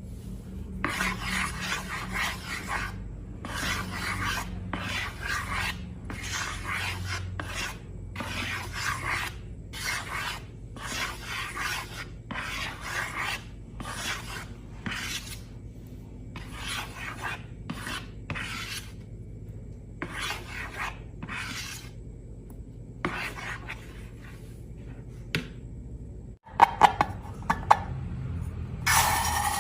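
Slime being worked, making repeated rasping, rubbing strokes about one a second. The strokes stop after about 22 seconds; a few louder handling sounds follow near the end.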